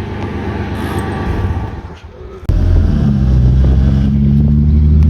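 Vehicle engine running. About halfway through it jumps abruptly to a louder, steady, low engine drone whose pitch creeps slightly upward.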